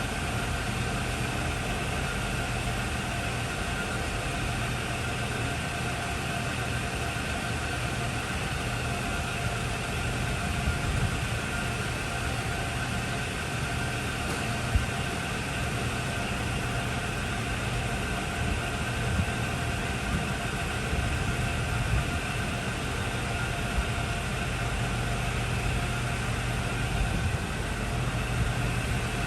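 Hardinge HLV-H tool room lathe running steadily under power, its drive and spindle giving a steady hum with a few higher steady whines, plus a few light clicks.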